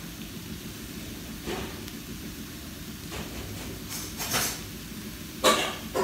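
Steady low hum and hiss, with a handful of short knocks and clatters; the loudest comes about five and a half seconds in.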